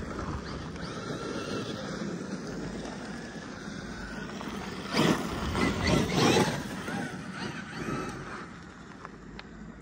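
RC monster truck with a brushless motor being driven across gravel: the motor whines in rising and falling glides under the throttle, over the rush of the tyres on the gravel. The sound is loudest in a few throttle bursts about five to six and a half seconds in, then fades as the truck moves away.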